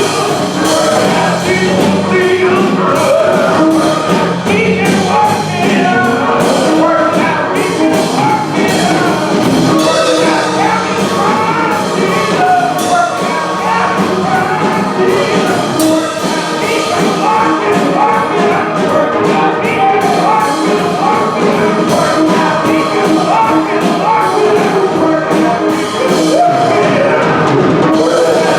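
Gospel music: voices singing over a band with drums keeping a steady beat.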